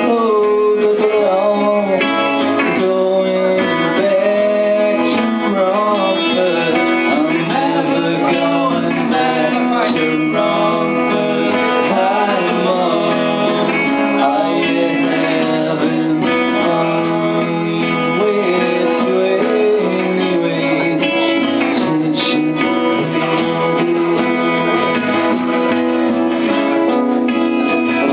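A live band playing a song, with strummed guitar carrying the steady accompaniment and a wavering melody line over it.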